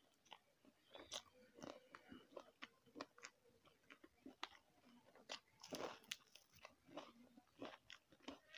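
Faint close-up mouth sounds of a person eating: irregular biting, crunching and wet chewing clicks, with a louder crunchy stretch about six seconds in.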